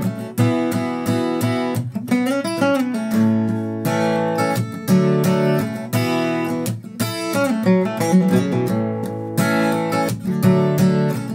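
Acoustic guitar with a capo at the second fret, strummed through open G, C and D chord shapes, with short single-note licks on the open strings between chords. Some of the notes slide in pitch, about two seconds in and again near eight seconds.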